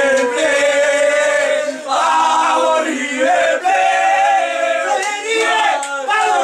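A group of men singing a football chant together to celebrate a goal, loud and in phrases of a second or two with short breaks between them.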